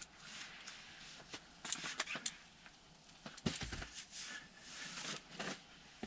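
Faint rustling and light clicks of hands working the fabric window of a hunting ground blind, with a soft thump about three and a half seconds in.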